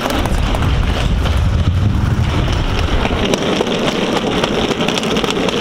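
Hard-shell wheeled suitcase rolled along a paved pavement, its small wheels rattling and rumbling over the paving.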